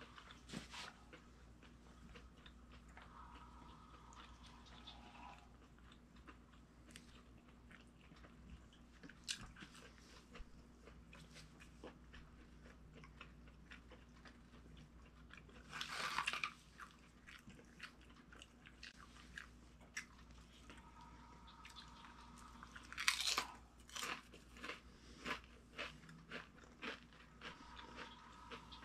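A person chewing food with soft clicks and crunches, with a loud crunchy bite about halfway through and a run of crisp crunches a few seconds later.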